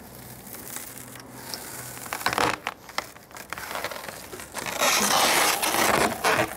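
Hammer-shattered Tesla Solar Roof tile being bent by hand: its broken tempered glass crackles and crunches. Scattered crackles come at first, then a denser, louder crackling from about five seconds in as the tile is bent the other way.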